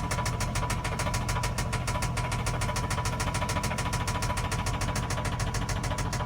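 2003 Infiniti I35's 3.5L V6 engine running with a rapid, even tapping and a thin steady whine. The owner takes the tapping for engine knock; it is still there after the timing chain tensioner was replaced, and no codes are set.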